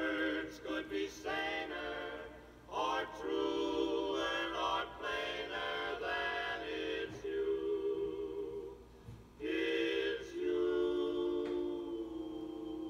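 Barbershop quartet singing in close harmony, played from a 45 rpm vinyl record on a Crosley portable record player. The singing comes in phrases that end on long held chords, and it sounds thin, with almost no bass.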